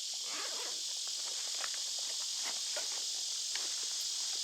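Nylon backpack being opened and its gear handled: soft fabric and plastic rustling with scattered light clicks. A steady high insect buzz runs underneath.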